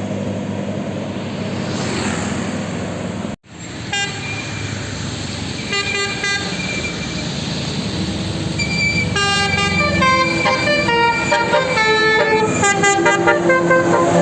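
Bus's Basuri 'telolet' multi-tone musical horn, sounding short clusters of notes a few seconds in and then a long, fast tune of changing pitches through the second half. A low engine drone runs underneath.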